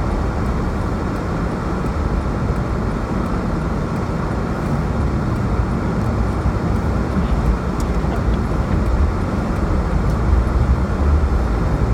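Steady outdoor rushing noise in a snowstorm, with a deep rumble that swells and fades, a mix of wind and road traffic.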